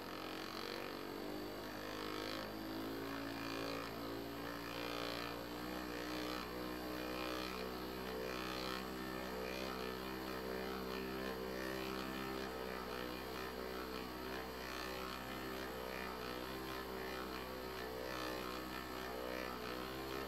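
Small DC motor driving a second motor as a generator, running with a steady electric hum and a wavering whine; the hum comes up right at the start.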